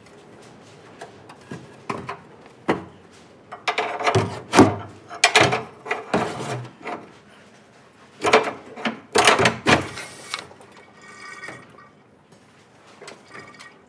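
Metal clanks, knocks and scraping as parts under a truck bed are worked loose by hand. The sounds come in two busy spells, about four and eight seconds in, with a short rattle near the end.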